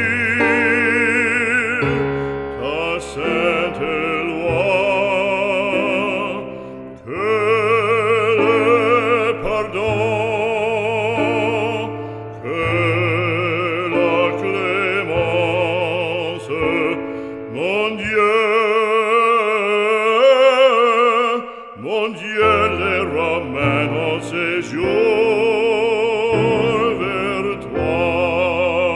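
Operatic solo voice singing long held notes with wide vibrato over sustained instrumental accompaniment. The low accompaniment drops out for a few seconds about two-thirds of the way through.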